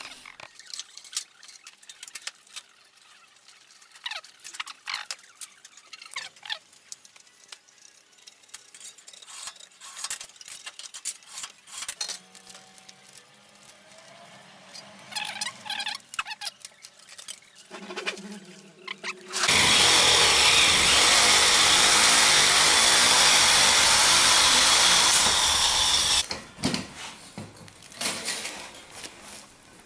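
Packing tape and foil crinkling and tearing as a tape template is handled and smoothed, with scattered clicks and a few short squeals. About two-thirds of the way through, a loud steady rushing noise starts suddenly, runs for about seven seconds and cuts off, followed by more handling clicks.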